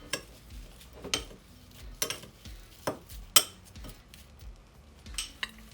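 A spoon clinking against a dish while stirring a mix of dry herbs: a series of sharp clinks, roughly one a second, with the loudest a little past the middle.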